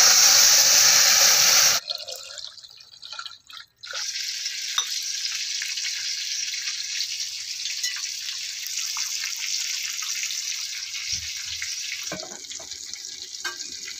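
Hot liquid poured from an aluminium pan into a steaming pot, splashing loudly for about two seconds. After a short quieter pause, a steady, softer hiss with faint clicks follows and fades a little near the end.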